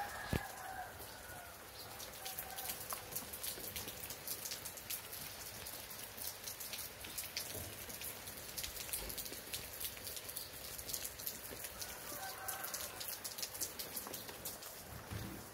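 Steady rain falling, with a dense, close patter of individual drops striking.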